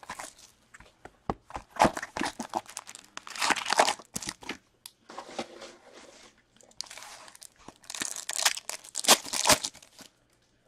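Cellophane shrink wrap being torn off a box of hockey cards and crinkled, then foil card packs handled and torn open. The crinkling and tearing comes in irregular bursts and stops about a second before the end.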